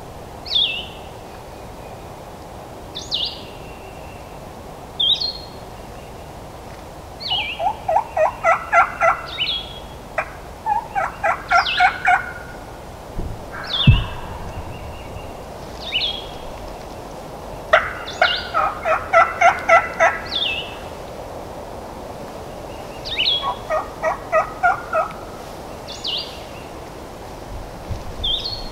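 Turkey yelping in several runs of evenly spaced notes, about four a second, each run lasting a couple of seconds. A small bird repeats a short, high, falling chirp every couple of seconds, and there is a single low thump about halfway through.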